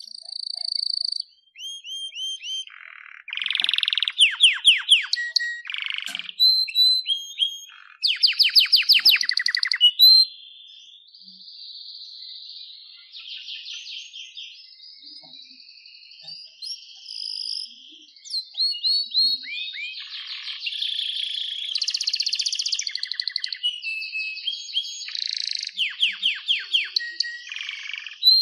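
Canary singing a long, varied song: fast rolling trills of quickly repeated notes, clear whistled tones and buzzy passages, changing every second or two.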